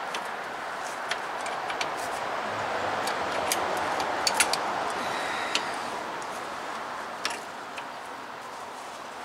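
Scattered sharp metallic clicks and taps as locking pliers work the rear caliper's parking brake lever and its cable, over a steady background hiss.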